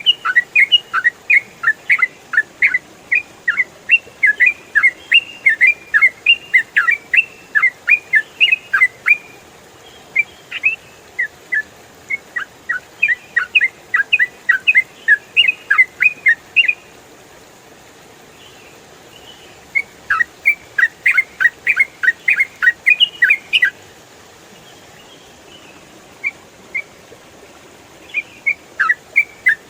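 Yellow-vented bulbul (trucukan) singing a fast, continuous run of sharp chirping notes, the 'ropel' song. It comes in bursts, with breaks of a few seconds about two-thirds of the way through and again near the end.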